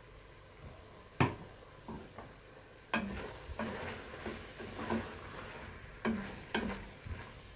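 A wooden spoon stirring beef pieces in a stainless steel pot, scraping and knocking against the pot's sides and base in an irregular run of strokes from about three seconds in. A single sharp knock comes about a second in.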